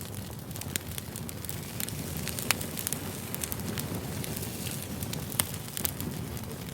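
Wood fire burning: a steady low rumble with frequent crackles and sharp pops, two of them louder, about two and a half and five and a half seconds in.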